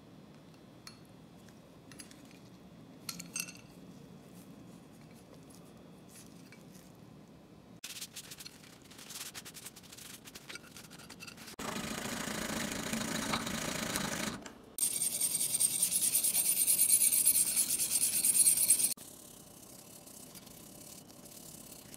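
Paper towel being rubbed and wiped over a cleaver's steel blade by gloved hands, in stretches of scrubbing that grow louder in the middle and stop abruptly about three seconds before the end. It is preceded by faint handling clicks as the blade is lifted from its soaking tray.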